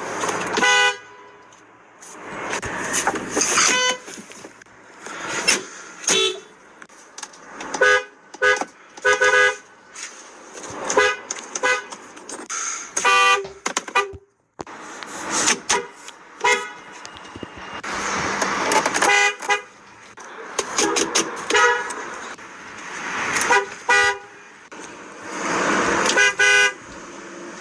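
Car horns honking in many short blasts, some single and some in quick runs of two to four, with more than one horn pitch. A loud rushing noise swells between the honks.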